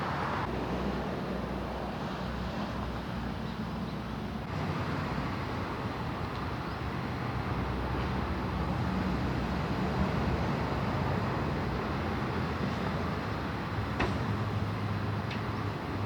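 Steady low rumble of a motor vehicle running, with two faint clicks near the end.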